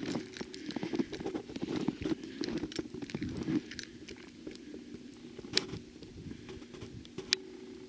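Footsteps crunching in fresh snow: a dense run of crunches for the first three and a half seconds, then sparser ones, with two sharp clicks in the second half.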